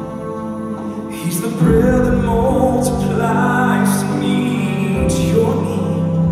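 Male Southern gospel quartet singing live into handheld microphones, with instrumental accompaniment underneath.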